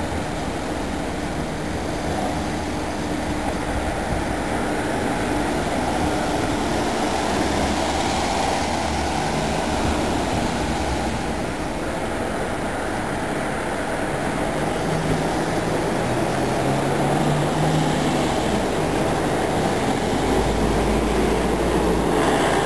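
Street traffic: vehicles driving past with engines running and tyres on the road, one engine rising in pitch about two-thirds of the way through.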